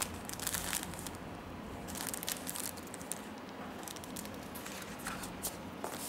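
Thin plastic packaging crinkling as a sealed plastic bag is handled and shaken, in irregular bursts of crackle: a cluster at the start, another about two seconds in, and lighter rustles later.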